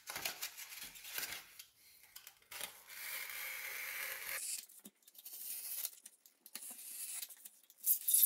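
Utility knife blade slicing around the rim of two stacked styrofoam plates: a scratchy, tearing foam sound in a series of strokes, with one longer continuous cut about three seconds in and a few sharper scrapes near the end.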